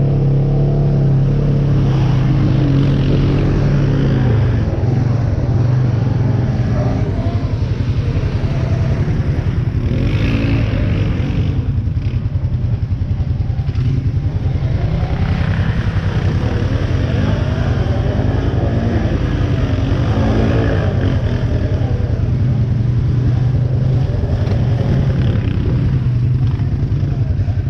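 ATV engine running close by, its revs rising and falling as the quad is ridden.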